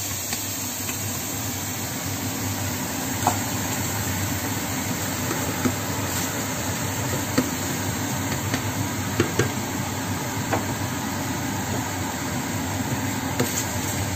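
Diced tomatoes sizzling in a stainless steel frying pan as they are stirred with a plastic slotted spatula. The spatula taps or scrapes the pan now and then, about seven sharp clicks, over a steady low hum.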